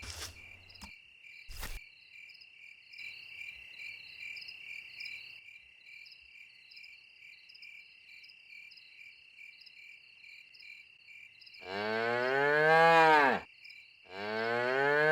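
A cow mooing twice near the end, two long calls that each rise and then fall in pitch. Crickets chirp steadily throughout.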